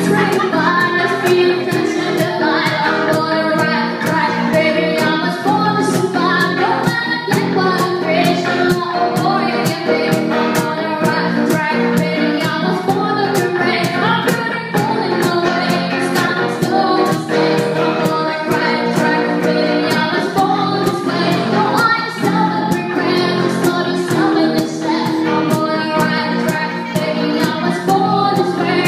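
Live band playing a song with a woman singing lead, drums keeping a steady beat.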